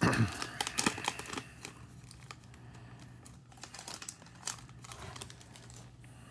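Foil wrapper of a Topps Chrome baseball card pack crinkling and tearing as it is opened and the cards are slid out. Dense crackling for about the first second and a half, then fainter rustling with a few clicks.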